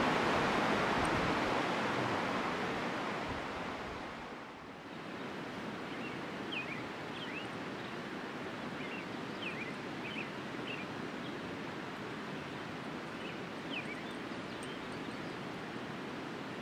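Steady rushing of a river running past the camp, falling to a quieter level about four seconds in, with faint short high chirps scattered through the second half.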